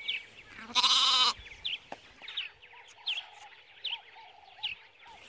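A sheep bleats once, loud and wavering, about a second in, with fainter bleats a couple of seconds later. A bird calls throughout with short falling chirps, repeated about once a second.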